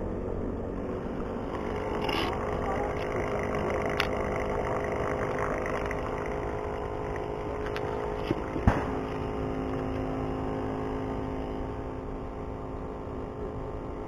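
A motor engine running steadily, with a few sharp clicks, the loudest about two-thirds of the way in.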